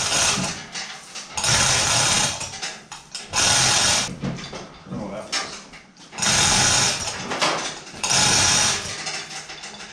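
Hand-pulled chain hoist lifting a Ford flathead V8 engine: the hand chain rattles through the hoist in bursts about a second long, roughly every two seconds.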